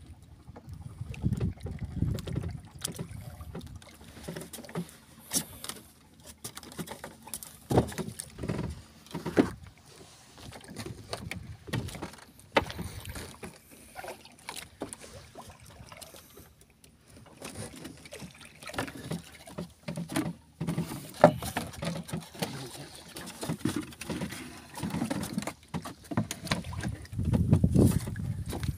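Sea water sloshing against a small outrigger boat's hull, with irregular knocks and clatters of hand-line fishing gear against the boat and low rumbling surges, the strongest near the end.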